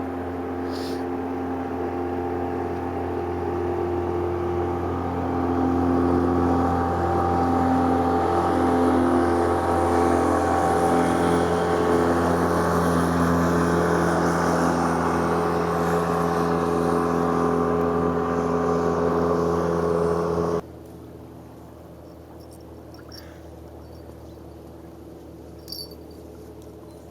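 An engine running steadily, its pitch rising for a while and then holding, until it stops abruptly about twenty seconds in, leaving a much quieter background with a few faint ticks.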